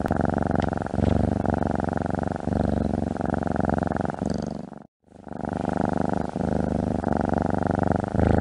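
Domestic cat purring: a steady, rumbling purr broken by short pauses. The sound cuts out completely for a moment about five seconds in, then the purring starts again.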